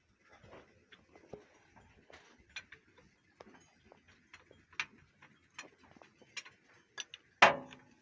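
Irregular metal clicks and taps of tools and parts being handled during a tractor gear repair, with one louder clank near the end.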